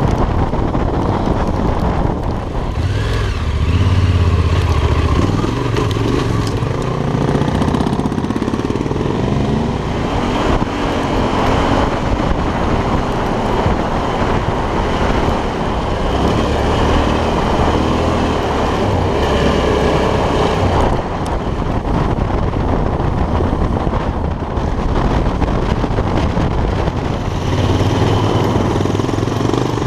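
Yamaha Ténéré 700's parallel-twin engine running under way, its note rising and falling as the bike is ridden, over steady wind and road noise on the microphone.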